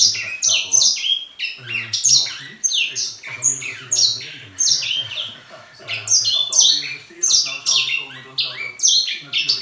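Grey singer finch singing: a fast, unbroken run of short, high notes, many of them sliding downward.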